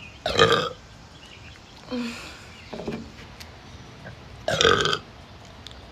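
A woman burping: two strong burps, one just after the start and one about four and a half seconds in, with fainter, shorter ones between them.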